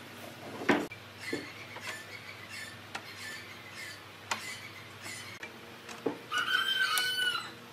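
Notched wooden slats knocking against one another and the bench top as they are laid down and slotted into a lattice, a sharp clack roughly every second. Near the end a high squeal lasts about a second.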